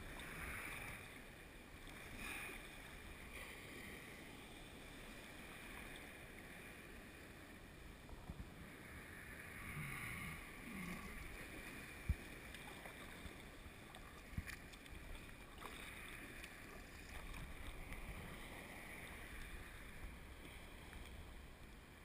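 Faint splashing and lapping of water around an inflatable kayak and its paddles, with a single sharp knock about twelve seconds in.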